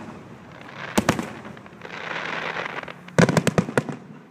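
Aerial fireworks shells bursting: a few sharp bangs about a second in, a spell of crackling glitter in the middle, then a quick volley of bangs a little past three seconds.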